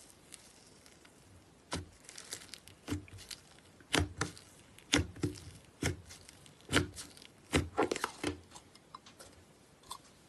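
Fingers pressing and poking bubbly slime packed in a plastic tub, with trapped air pockets popping in a series of sharp pops about once a second.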